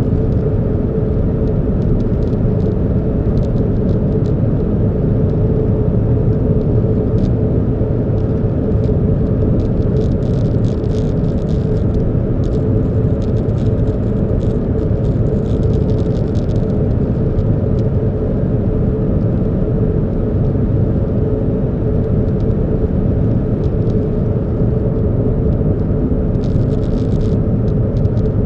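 Steady car rumble of engine and road noise, with a faint steady hum and scattered light ticks.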